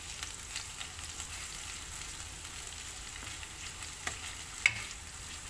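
Shallots, garlic and ground chili paste sizzling in hot oil in a frying pan while a spatula stirs them, a steady hiss. About four seconds in the spatula knocks sharply against the pan twice, the second knock the loudest sound.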